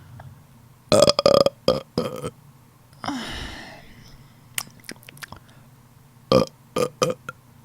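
A woman burping loudly: a long, choppy burp about a second in, then a cluster of shorter burps near the end.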